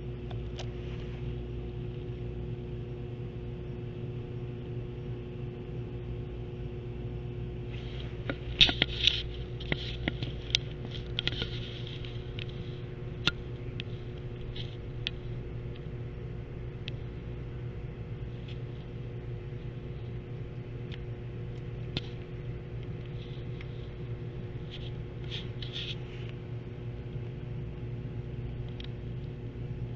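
A steady low hum runs throughout, with scattered short clicks and scrapes that cluster about a third of the way in and again near the end.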